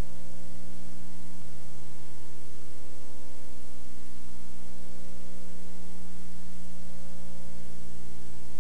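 Steady electrical mains hum: a stack of low buzzing tones under a constant hiss, with no other sound.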